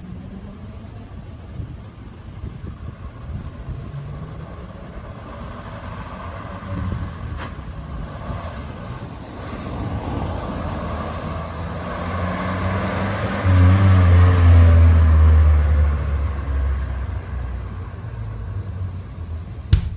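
1967 Citroën HY van driving up and past, its engine growing louder as it approaches. It is loudest about two-thirds of the way through as it passes, then fades as it drives away.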